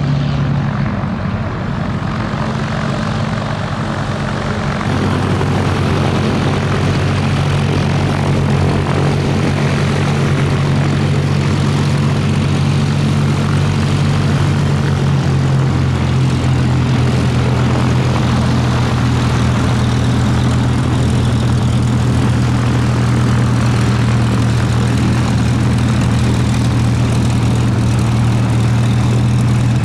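A Hawker Hurricane Mk.I's Rolls-Royce Merlin III V12 engine running at low power as the fighter rolls and taxis on the ground, a steady deep propeller drone. It grows a little louder about five seconds in, and its pitch steps slightly lower around the middle.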